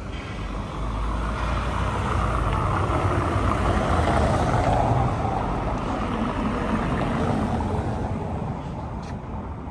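Street traffic: a motor vehicle passes, its noise swelling to a peak about halfway through and then fading.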